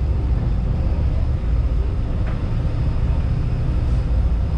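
Party fishing boat's engines running with a steady low rumble as the boat backs into its slip.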